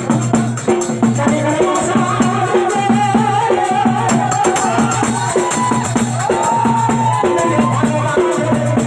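Loud folk devotional music: a gliding melodic line over a steady low drone, with a rattling, shaker-like percussion beat.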